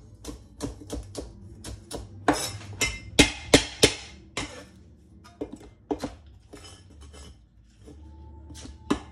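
Chinese cleaver chopping a spring onion on a cutting board: quick, irregular sharp knocks, thinning out to a few spaced chops in the second half.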